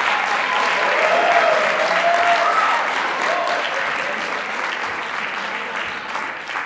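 Audience applauding at the end of a stage fight, with a few voices cheering over the clapping early on; the applause peaks about a second and a half in and then slowly dies away.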